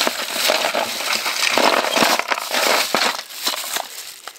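Loose plastic Lego bricks clattering and rattling against each other as a hand rummages through a box full of pieces, dying down near the end.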